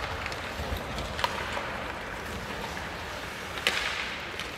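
Ice hockey play on a rink: a steady hiss of skates carving the ice, broken by a small sharp crack about a second in and a louder, briefly echoing crack of stick and puck near the end.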